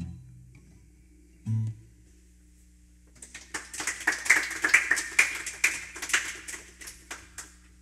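A short low note on an acoustic guitar as the song ends. Then, a few seconds in, a small audience claps for about four seconds, building up and then dying away.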